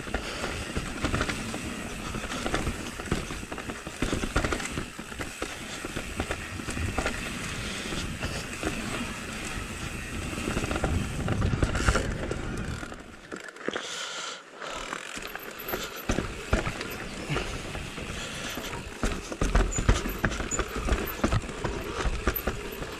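E-mountain bike riding down a rough forest singletrack: tyres rolling and skidding over dirt, roots and rocks, with the bike's frame and chain rattling and many short knocks as it hits the bumps. The low rumble drops away briefly a little past halfway, then the rattling resumes.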